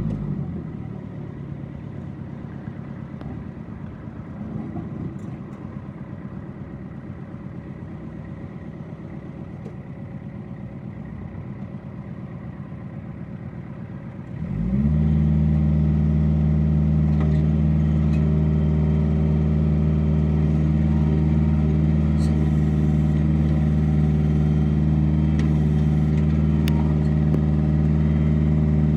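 Kubota L4200 compact tractor's diesel engine running quietly at low speed. About halfway through it revs up quickly and then holds a steady, much louder higher speed.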